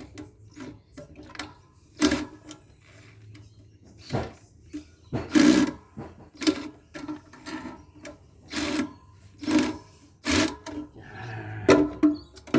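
Hand tools working on the metal casing and parts of a solar inverter being dismantled: a run of irregular sharp knocks and metallic clatters, about a dozen, with a faint low hum between them.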